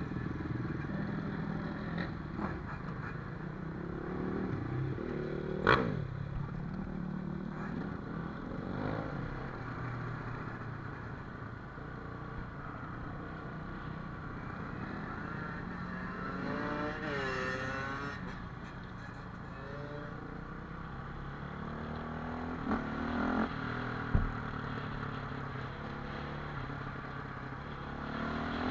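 Dirt bike engine running while riding along a lane, rising and falling with the throttle, with one clear rev up and back down about halfway through. Two sharp knocks stand out, one early and one near the end.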